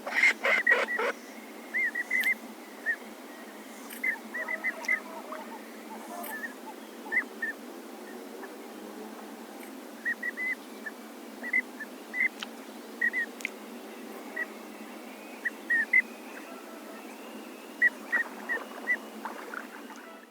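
Waterfowl calls from yellow-billed pintail and magpie goose recordings, put together as a speculative voice for the extinct duck relative Vegavis. A loud cluster of harsh calls comes in the first second, then short high calls in twos and threes recur all through, over a steady hiss.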